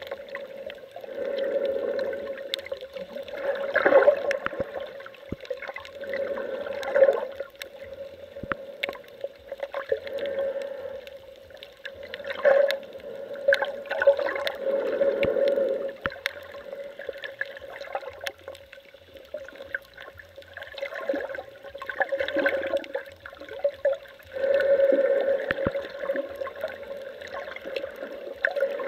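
Underwater sound picked up by a submerged camera: muffled water swishing and gurgling that swells and fades every few seconds, over a steady hum, with scattered small clicks.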